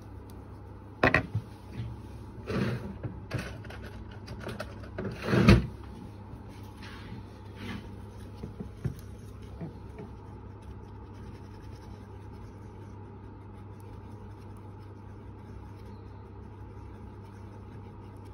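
Handling noises on a workbench: a few short knocks and rustles in the first six seconds, the loudest about five and a half seconds in, as a small tube and tools are picked up and set down. A steady low hum runs underneath.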